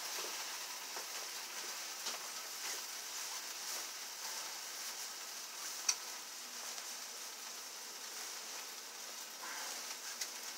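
Food sizzling on a grill: a steady hiss with small scattered pops, and one sharper pop about six seconds in.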